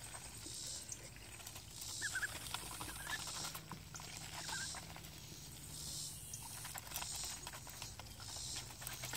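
Domestic ducks feeding from a metal bowl of pellets: bills pecking and dabbling through the feed in quick, irregular clicks and rattles, with a few faint short chirps.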